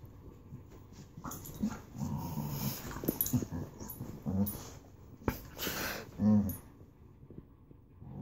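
A dog growling in play while mouthing and tussling with a person's socked feet, in short, broken growls mixed with rustling of bedding. The growls are play growls, not aggression.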